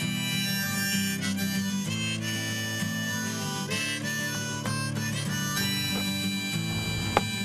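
Harmonica playing a melody over acoustic guitar accompaniment, cutting off abruptly at the end with a click just before.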